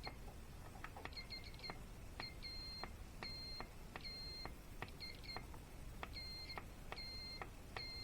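Multimeter in continuity mode beeping as a repaired Chevrolet Volt keyless door button is pressed about eight times. Each press is a click followed by a steady high beep that lasts while the button is held, and some presses break into quick stuttering beeps. The beeps show the button's switch making contact again.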